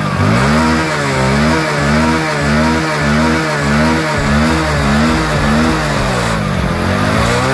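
Hero Splendor Plus BS6's 97 cc single-cylinder fuel-injected engine running, its speed swinging up and down about twice a second, with a slower drop and rise near the end. The owner says the bike has been jerking because its fuel pump filter is clogged with dirt.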